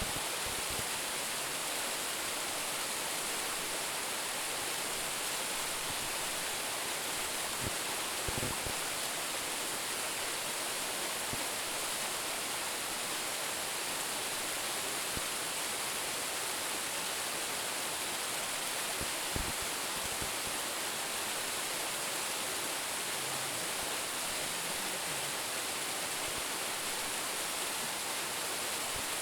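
Waterfall of about a ten-metre drop pouring steadily, a constant rushing hiss of falling water. A couple of faint low thumps sound under it, about eight and nineteen seconds in.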